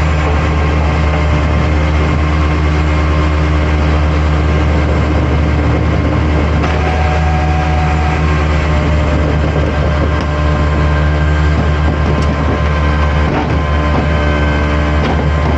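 Flatbed tow truck's engine running steadily, a deep even drone, while it powers the winch pulling an overturned truck back upright. A few light clicks near the end.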